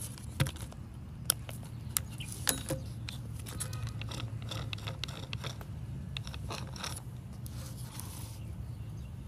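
Metal clicks, light rattling and scraping of a screwdriver and loose parts against an old angle grinder's metal gear head and housing as it is taken apart. A few sharp clicks come in the first three seconds, then softer ticking and scraping, over a steady low hum.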